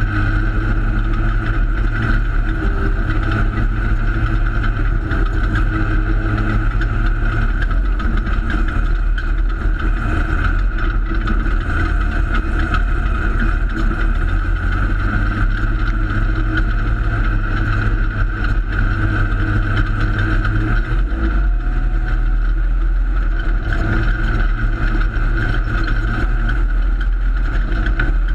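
Holden Torana open-sedan race car's engine heard from inside the cabin, running hard under racing load, its note shifting a couple of times with the throttle.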